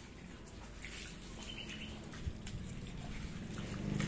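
Water from a garden hose running and splashing onto a python and wet brick paving, growing louder toward the end.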